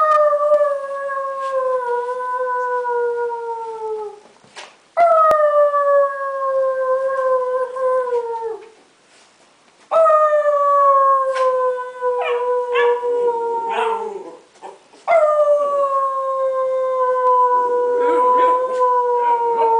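A person howling four long, slowly falling 'ooo' notes with short gaps between them, to get a chiweenie (Chihuahua–dachshund mix) to howl. During the third and fourth notes the dog starts to join in with rough, wavering howls.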